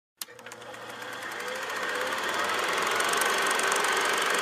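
Old film projector running as an intro sound effect: a rapid, even mechanical clatter with a steady whine, starting with a click and growing louder over the first couple of seconds.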